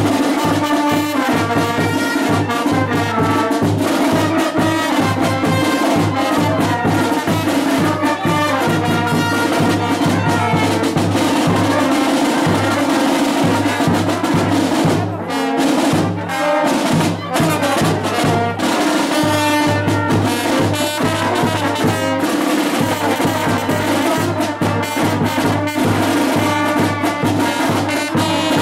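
Brass band playing with trumpets, trombones and drums.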